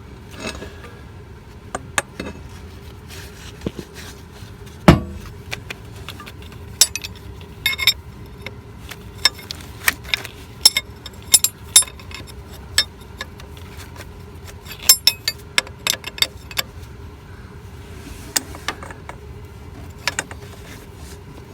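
Metal wrenches clinking and tapping against hose fittings while the coolant hose fittings are being tightened, with a louder knock about five seconds in, over a faint steady hum.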